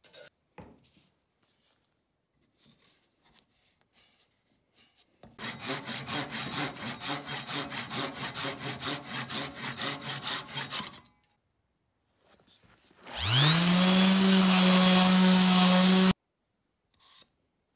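A hand saw cutting through a wooden dowel in quick back-and-forth strokes, about three a second, for several seconds. After a pause, a random orbital sander starts up with a rising whine, runs steadily against the wood, and cuts off abruptly.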